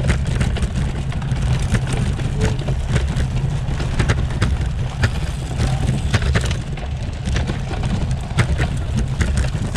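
Bicycle rattling over rough cobblestones (pavé): a steady low rumble with a dense run of irregular clicks and knocks as the bike is shaken.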